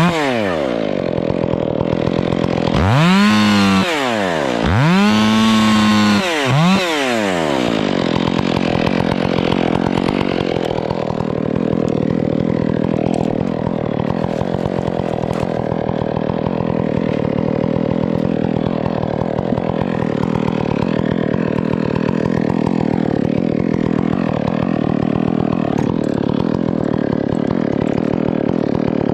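Stihl two-stroke chainsaw revved up and back down three times, then running steadily at a lower speed.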